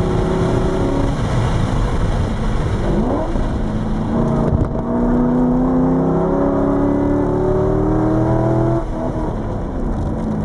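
C5 Corvette Z06's LS6 V8 heard from inside the cabin on track, with a hiss of wind and tyres. The engine note dips briefly about three to four seconds in, then climbs steadily under acceleration for about four seconds, and drops away near the end.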